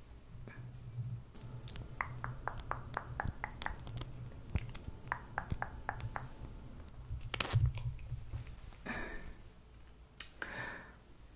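Close-miked sticky, crisp clicks, about three or four a second, with a louder cluster in the middle, as a liquid lipstick applicator is dabbed onto lips. Two softer swishes follow near the end.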